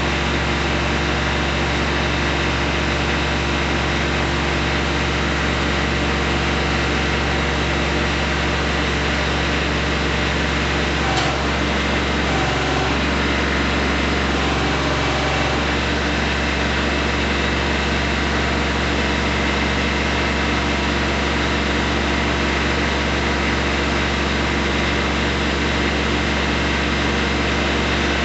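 Kubota B2320 compact tractor's three-cylinder diesel engine running steadily at idle, with a single short knock about eleven seconds in.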